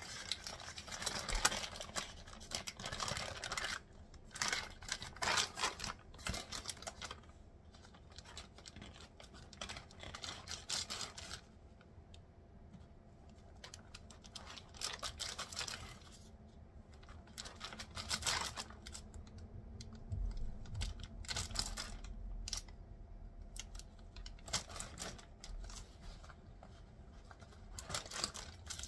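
Knife cutting up a pumpkin roll: a run of irregular light clicks and scrapes.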